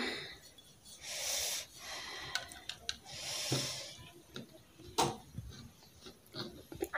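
Kitchen knife cutting tomatoes on a plastic chopping board: a few sharp knocks of the blade hitting the board, the loudest about five seconds in. Two breathy exhalations close to the microphone come in the first half.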